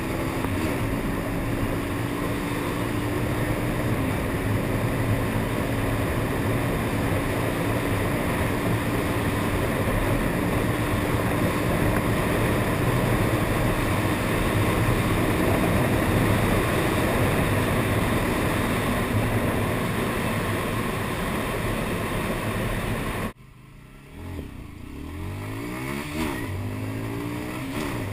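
Honda CBR125R single-cylinder four-stroke engine running under way, mostly buried in heavy wind rush on the microphone. About 23 seconds in, the wind noise drops away abruptly, and the engine's pitch rises several times as the bike accelerates.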